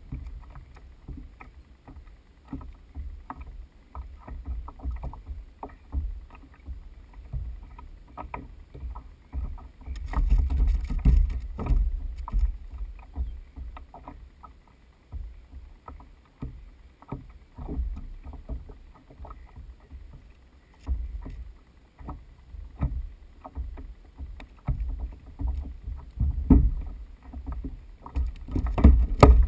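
Kayak on the water: water lapping and slapping against the hull, with frequent small knocks and bumps. A louder, rushing stretch comes about ten seconds in.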